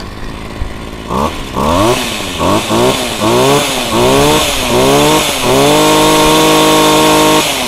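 26cc Komatsu brush cutter's small two-stroke engine idling, then revved up and down several times in quick blips of the squeeze throttle. It is held at full revs for nearly two seconds and let back down near the end.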